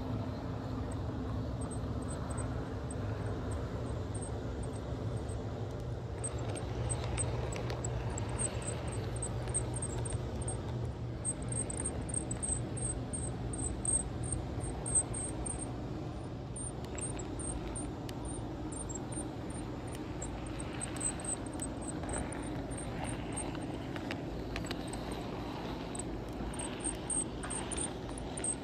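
HO-scale model train rolling along its track: a steady low hum with many light, rapid ticks over it.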